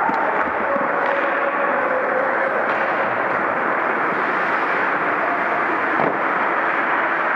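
Ice hockey rink ambience: a steady, echoing wash of noise from skating and play on the ice, with one sharp knock about six seconds in.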